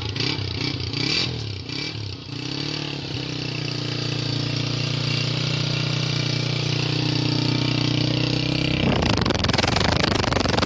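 Honda CG 125 2022 model's single-cylinder four-stroke engine being blipped, its revs rising and falling several times. It is then held at a steady speed that builds slowly. About nine seconds in, a loud rough rush of noise swamps the engine note and is the loudest part.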